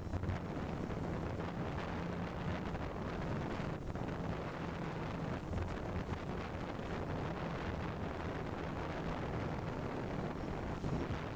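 Wind buffeting the microphone of a GoPro on a flying DJI Phantom 2 quadcopter, over the steady low hum of its propellers.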